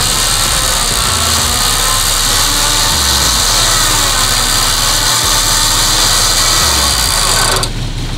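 An 8,000-lb electric winch on a Jeep pulling in its line on a two-line pull through a snatch block, with the Jeep's engine running. The winch stops about seven and a half seconds in, leaving the engine idling.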